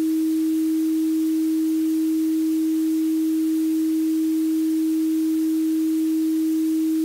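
A single steady electronic sine tone held at one low-middle pitch, pure with no overtones, over a faint hiss.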